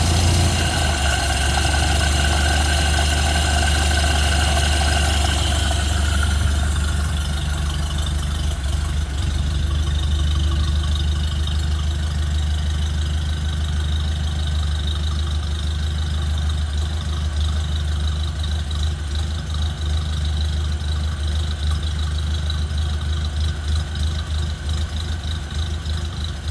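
1931 Ford Model A's four-cylinder flathead engine idling steadily just after starting, its higher-pitched clatter softening about six seconds in.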